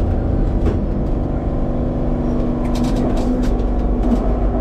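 Lisbon Tram 28 electric tram running on its rails, heard from inside the car: a steady low rumble with a constant motor hum, and a few short rattling clicks about three seconds in.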